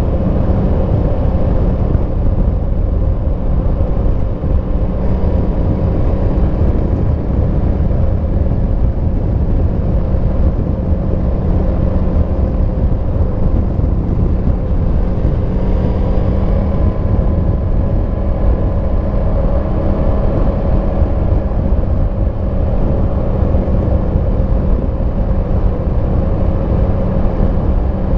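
Yamaha MT-10 SP's crossplane inline-four running at a steady cruise through its stock exhaust, the engine note holding nearly even with a slight rise in pitch about halfway through.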